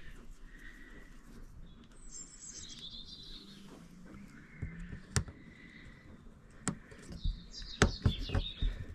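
A small bird singing two quick twittering phrases that step down in pitch, one about two seconds in and one near the end. A few sharp clicks come from the metal screw and screwdriver being handled.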